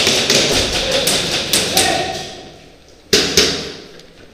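Airsoft guns firing a quick string of shots, several a second, dying away about two seconds in, then a second short burst of shots about three seconds in.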